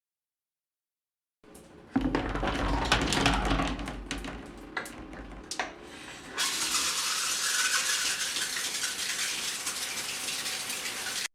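Water sound effects: a few seconds of splashing and sloshing with sharp clicks and a low rumble, then a steady hiss of running water, as from a tap, that cuts off suddenly near the end.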